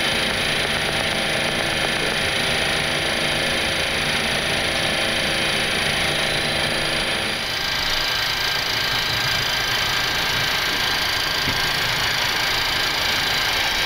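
Steady hum and rush of a Boeing 737 flight deck on the ground: engine, air-conditioning and equipment-fan noise with several fixed droning tones. About seven seconds in the sound changes abruptly to a thinner rush with a steady high whine.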